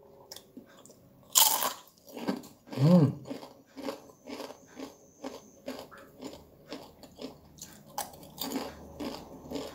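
Crisp fried wonton skins (pangsit goreng) bitten with a loud crunch about one and a half seconds in, then chewed with steady crunching, about two to three chews a second.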